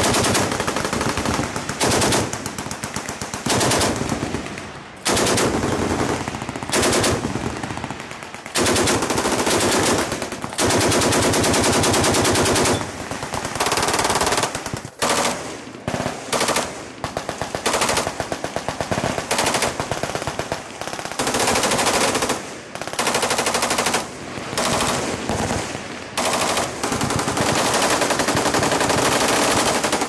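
Full-auto machine-gun fire from several guns on a firing line: long rapid bursts that overlap and run almost without a break, with only short pauses between strings.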